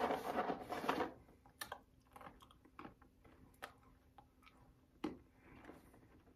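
Hard Milk-Bone Mini dog biscuits rattling and rustling in their box as a hand digs in, then a person crunching one between the teeth in several sharp cracks.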